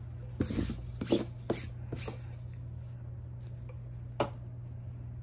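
Sticky lint roller rolled over a polyester shirt: several short strokes in the first two seconds, then one sharp click about four seconds in.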